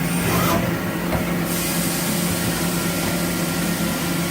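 CNC lathe running with a steady hum, with a brief hiss about half a second in that lasts around a second.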